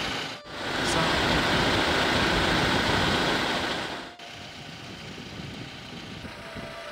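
A steady rushing outdoor noise with no clear pitch, broken by sudden cuts: a louder stretch of about four seconds, then a quieter one.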